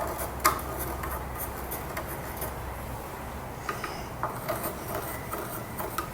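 Light handling sounds of a drawer slide being positioned and marked against wood: scattered small clicks and taps with soft rubbing, over a faint steady low hum.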